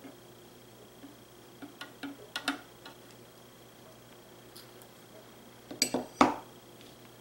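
Metal pieces clinking against a glass jar and knocking on a tabletop as electrodes are handled and swapped. There are a few light clinks about two seconds in, then a louder quick cluster of knocks near the end.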